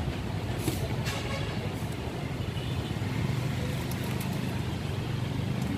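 Steady low rumble of road traffic, cars and motorbikes passing on a busy city road.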